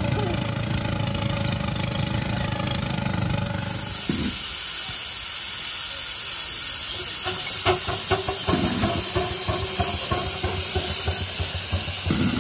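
Steady mechanical running with a light hiss, then, about four seconds in, a loud steady hiss of steam escaping from a miniature live-steam traction engine being steamed up, with a few short clicks partway through.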